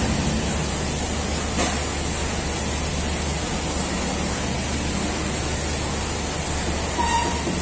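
Steady background hiss with a low hum. One faint knock comes about a second and a half in, and a short beep-like tone comes near the end.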